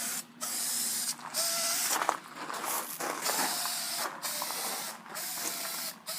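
Aerosol can of white primer spraying in short hissing bursts, about one a second, with brief pauses between passes.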